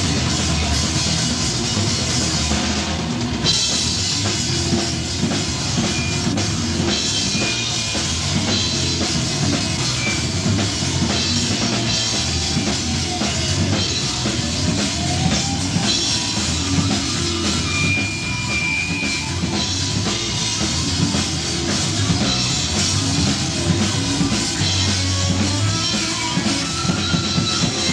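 Heavy metal band playing live, with a drum kit hit densely and hard over distorted guitars and bass.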